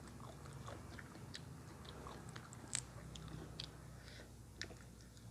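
A person chewing food in the mouth, with many short, irregular crunches and clicks.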